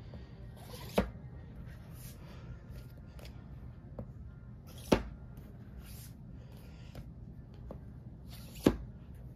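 Paperback books set down one at a time onto a stack of paperbacks: three sharp thuds about four seconds apart, with a few faint taps of handling between them.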